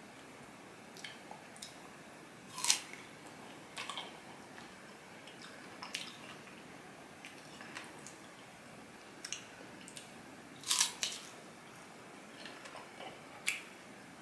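Crisp guava being bitten and chewed close to the microphone: scattered sharp crunches and wet mouth clicks every second or two, loudest a few seconds in and again about three-quarters through.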